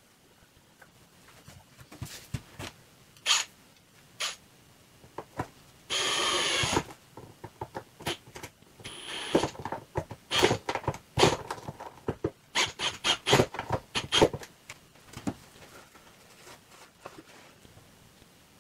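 Cordless drill driving screws down through a wooden pontoon deck. It comes in short runs of the motor, the longest just under a second about six seconds in, with sharp clicks and knocks between them until about fourteen seconds in.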